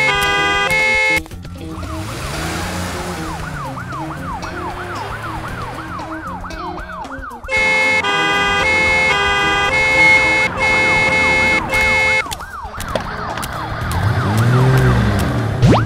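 Cartoon sound effects: a car horn honking in repeated blasts, then an ambulance siren coming in with a fast up-and-down wail about a second in. The honking starts again over the siren about halfway through.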